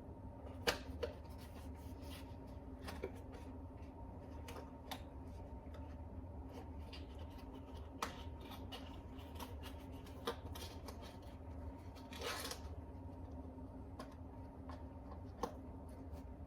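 Faint handling noises as a box is worked at to close it: scattered small clicks and taps, the sharpest about a second in and near the end, with a brief rustle about twelve seconds in, over a faint steady hum.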